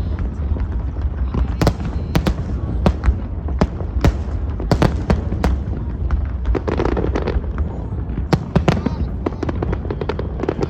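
Aerial fireworks going off: a rapid, irregular string of sharp bangs and cracks over a steady low rumble.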